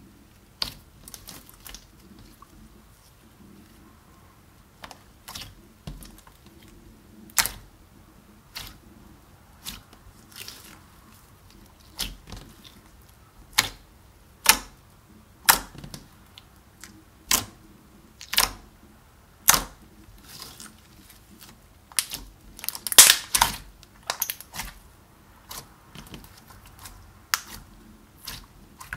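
Clear slime being kneaded and pressed flat by hand, giving sharp clicks and pops as air pockets in it burst, about one a second, with a quick flurry of louder pops about three quarters of the way through.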